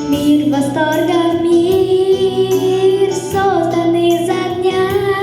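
A female voice singing long, slowly gliding notes without clear words, over a backing track with a steady bass.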